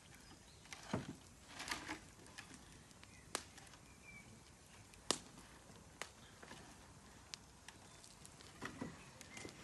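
Campfire burning wood, crackling faintly with irregular sharp pops and snaps, a few in quick clusters.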